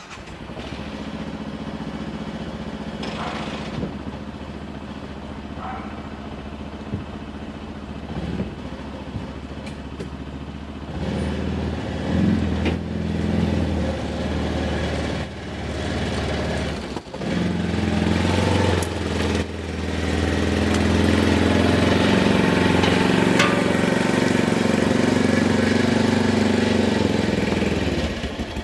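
Side-by-side utility vehicle's engine running, first at a steady idle, then louder and under more throttle about a third of the way in and again past the middle. A few knocks and clunks sound over it.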